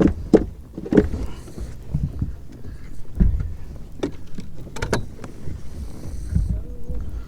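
Irregular sharp knocks and clicks with a few low thumps on a fishing boat: a freshly landed small striped bass flopping and being handled on board.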